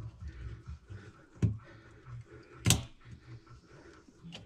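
Hands handling a plastic through-hull transducer fitting: three short sharp clicks and knocks, the loudest about two and a half seconds in, over a low steady hum.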